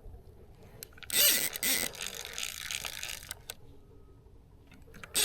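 Fishing reel clicking and ratcheting while a big catfish fights on the line, loudest in a burst about a second in, then softer until past the middle.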